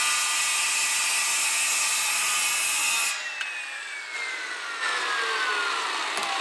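Circular saw with a well-used blade cutting forward through a laminate-faced panel for about three seconds. Then the trigger is released and the motor's whine falls steadily in pitch as the blade spins down.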